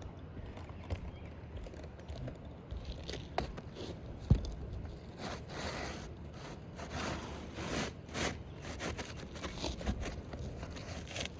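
Asphalt roof shingles being handled and scraped: a single sharp tap about four seconds in, then a run of rough scraping and rustling strokes.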